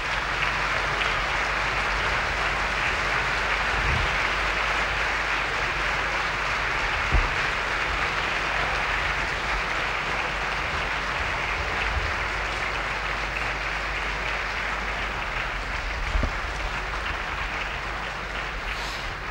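Theatre audience applauding steadily in a long ovation that eases slightly toward the end.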